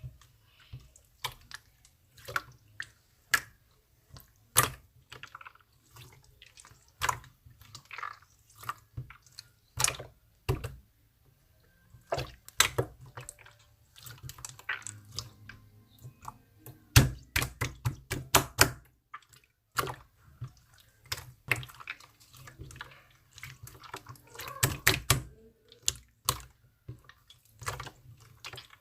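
Irregular wet clicks, pops and squelches, coming in quick clusters.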